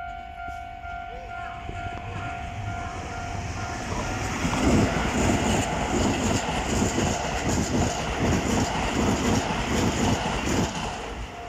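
Level-crossing warning bell ringing with a steady repeating tone, then a Toei 5500 series electric train passes close by from about four seconds in. Its wheels clatter rhythmically over the rail joints, loud for several seconds, and the noise fades near the end as the bell comes back through.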